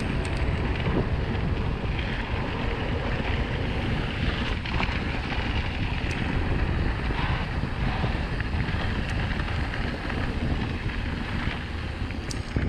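Wind buffeting the microphone of a camera on a moving mountain bike: a steady rushing noise, heaviest in the low end, that cuts off suddenly near the end.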